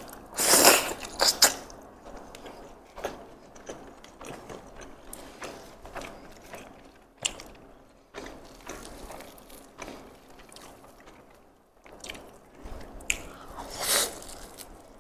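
Close-miked eating sounds from a person eating nasi lemak with fried chicken by hand: loud bites about half a second in and again near the end, with smaller chewing sounds in between.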